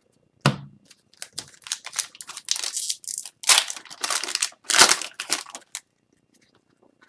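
Wrapper of an Upper Deck hockey card pack being torn open and crinkled in the hands, a run of crackling rustles lasting about five seconds, loudest near the middle. A thump about half a second in comes before it.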